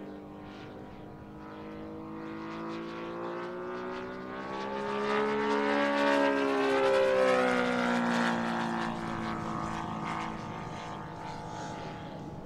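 Engine of a giant-scale RC model warbird droning in a low flyby: it grows louder to a peak about six to seven seconds in, its pitch dropping as it passes, then fades.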